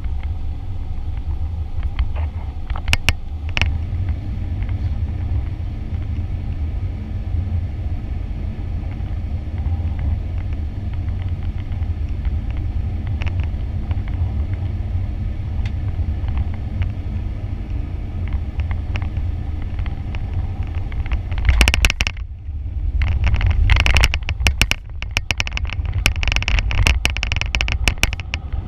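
Cabin noise of a Boeing 737 airliner landing: a steady low rumble of the engines and airflow on final approach. About three-quarters of the way through it touches down, and the sound turns louder and rougher, with rattling and bumping as it rolls down the runway.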